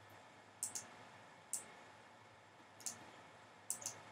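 About six sharp clicks from a computer's pointer button, some in quick pairs, over a faint steady hiss.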